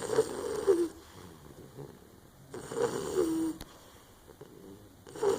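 English bulldog puppy snoring in her sleep: a loud snore about every two and a half seconds, each ending in a falling pitch, with softer breathing in between. This is the heavy snoring typical of the breed's short, flat muzzle.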